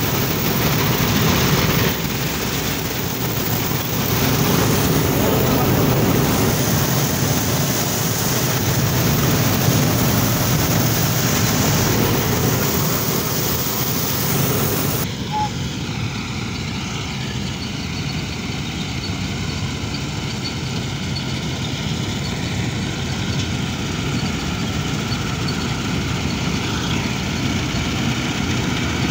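Old Massey-Harris self-propelled combine running while harvesting grain: its engine and threshing machinery make a loud, steady noise. About halfway through, the sound abruptly loses its high hiss and becomes a duller, steadier engine sound heard from beside the machine.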